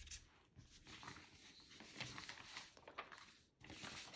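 Faint rubbing strokes of a Sharpie permanent marker's felt tip writing on paper.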